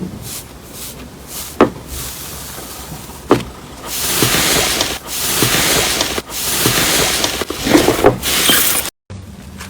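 Slime being pressed and worked by hand: two sharp pops, then a long stretch of crackly, squishing noise in several bursts that cuts off abruptly near the end.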